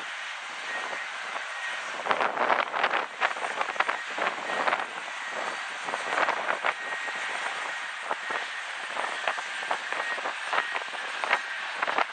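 Airbus A320-family airliner's jet engines running as it touches down and rolls out along the runway: a steady jet noise with a faint high whine and frequent sharp crackles throughout.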